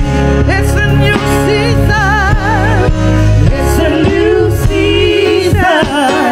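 Live gospel worship music: women's voices singing with wide vibrato and long held notes over keyboard accompaniment with a strong, steady bass.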